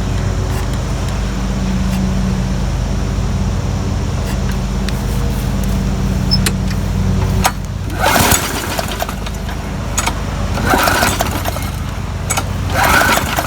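A push mower's recoil starter is pulled three times, about 8, 11 and 13 seconds in. The engine turns over with each pull but does not catch; the owner suspects water in the gas tank. A steady engine hum from another motor runs under the first half and stops about halfway through.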